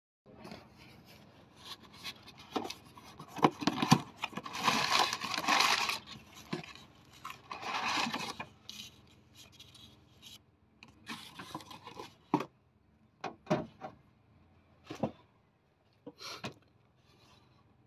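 A cardboard box being opened and a new alternator pulled out of it: scraping and rustling of cardboard, then several sharp clicks and knocks as the metal alternator is handled.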